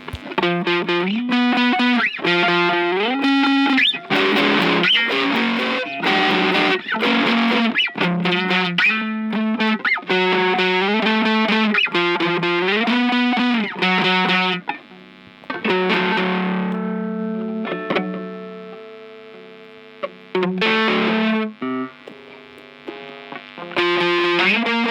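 Music: a distorted electric guitar plays a fast melodic line with bent notes. About sixteen seconds in, a held chord rings out and fades, then the busy playing returns near the end.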